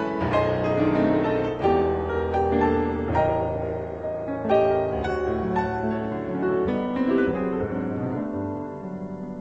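Background piano music, slow and gentle, with held notes and chords that fade a little toward the end.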